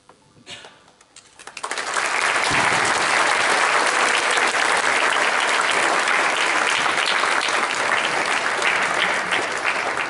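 Audience applauding: a few scattered claps in the first second or so, then full, steady applause from about two seconds in.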